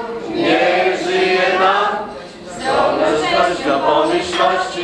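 A mixed group of men and women singing together unaccompanied, a toasting song at the table, with a short break about two seconds in.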